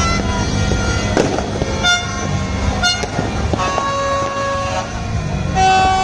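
Many horns tooting at once at several different pitches, overlapping, with a louder horn blast starting near the end. A few sharp firework bangs and crackles cut through about one, two and three seconds in.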